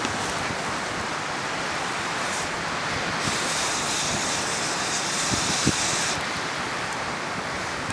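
Wind blowing across the microphone with a steady rushing noise, brighter and hissier for a few seconds in the middle, with a couple of soft thumps about five and a half seconds in.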